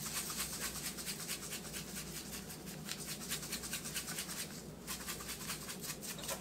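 Plastic shaker bottle of dry seasoning rub shaken rapidly over raw pork spare ribs, the granules rattling in quick, even strokes, several a second, with a short pause a little before five seconds in.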